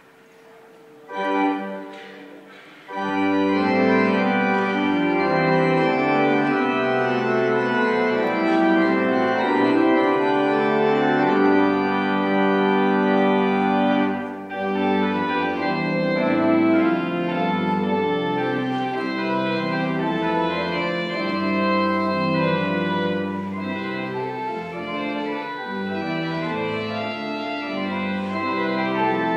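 Organ music: held chords, with a short chord about a second in and continuous playing from about three seconds in.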